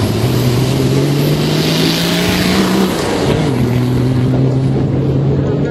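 Off-road rally 4x4's engine accelerating hard from the start on a dirt track, its pitch climbing for about three seconds, then dropping at a gear change and holding steady under load. A rushing hiss of dirt and gravel thrown up by the tyres runs through the first half.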